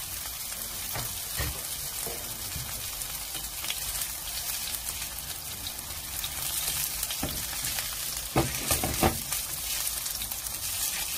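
Mung bean pancake batter sizzling steadily in hot oil in a frying pan, with a few short knocks about eight to nine seconds in.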